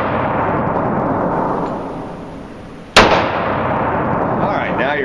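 A single semi-automatic pistol shot about three seconds in, with a long echo off the hard walls of an indoor range. At the start, the echo of a shot fired just before is still dying away.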